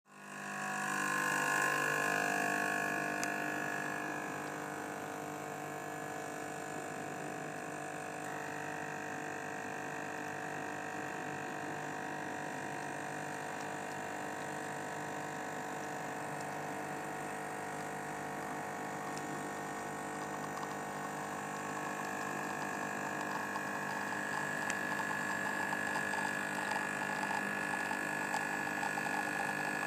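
Gaggia Evolution espresso machine running with a steady hum. It is loudest for the first few seconds, then settles, and a higher tone grows stronger after about twenty seconds.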